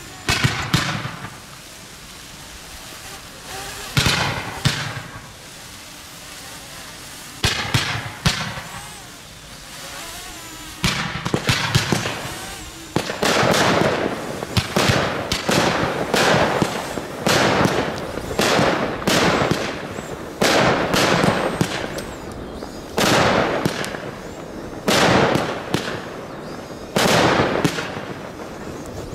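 Professional fireworks display heard from close to the firing site: at first a few loud single bangs several seconds apart, then from about eleven seconds in a steady run of bangs about one a second, with crackle between them as shells and rockets are fired in quick succession.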